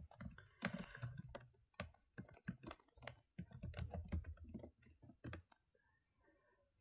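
Typing on a computer keyboard: a quick, uneven run of key clicks that stops about five and a half seconds in.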